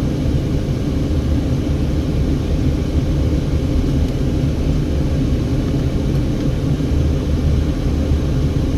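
Steady low rumble of a car driving at low speed, engine and tyre noise heard from inside the cabin.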